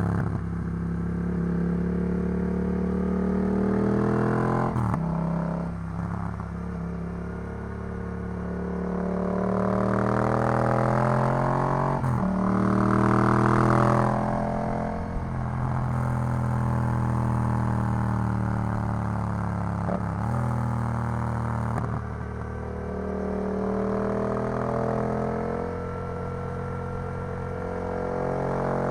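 Yamaha MT-07 parallel-twin engine through an Arrow full exhaust system, pulling under acceleration. The exhaust note climbs in pitch, then drops sharply at several gear changes.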